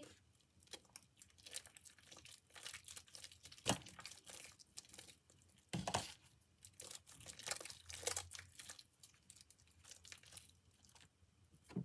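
Homemade glue-and-detergent slime, still sticky, being kneaded and pulled apart by hand: a faint, irregular run of wet crackles and little pops, with a couple of louder sharp snaps.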